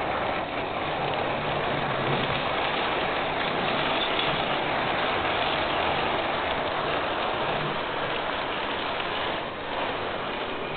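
HO-scale model train, an Adtranz DE 2000 diesel model locomotive hauling passenger coaches, running close by on the layout's track: a steady rushing noise from the wheels on the rails and the locomotive's motor, dipping briefly near the end.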